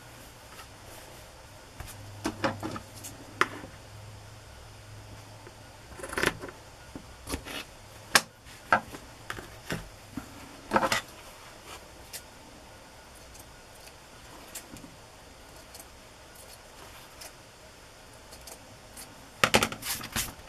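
Hands handling a cotton fabric strip against an old hardcover book cover on a cutting mat: scattered rustles, light taps and clicks, bunched in a few spells with a flurry near the end.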